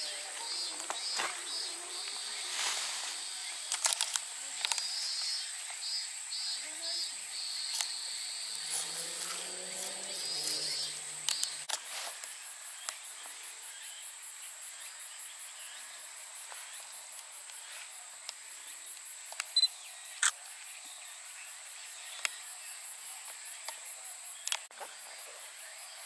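Insects calling in tall grass: a steady high-pitched buzz throughout, with a pulsed chirping that stops about twelve seconds in and is followed by a fast, even, very high pulsing trill. Scattered sharp clicks from the camera being handled.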